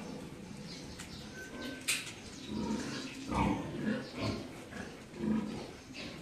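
Sow grunting repeatedly, a few low grunts a second, while her piglets suckle: the nursing grunts of a sow feeding her litter. A couple of sharp clicks sound in the first two seconds.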